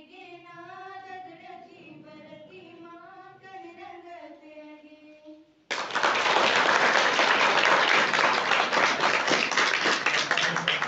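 Girls singing a Garhwali folk song together without accompaniment, the song ending about halfway through; then an audience breaks into loud applause that goes on to the end.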